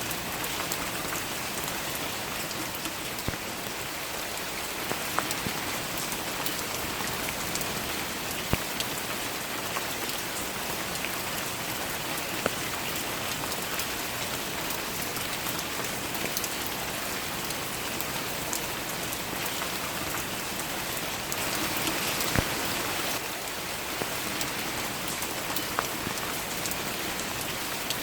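Steady rain falling, with scattered sharper single drops standing out from the hiss; it swells slightly for a couple of seconds about three-quarters of the way through.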